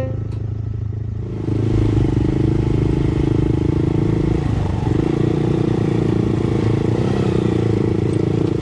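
Honda Monkey motorcycle engine running steadily under way, coming in louder about a second and a half in.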